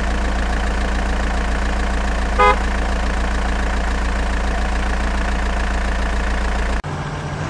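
Truck engine sound effect idling steadily, with one short horn beep about two and a half seconds in. The drone cuts off suddenly near the end and a different engine sound takes over.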